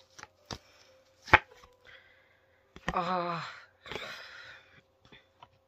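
A few sharp knocks and clicks on a hard surface, the loudest about a second in, then a short wordless vocal sound with falling pitch about three seconds in and a brief rustle after it.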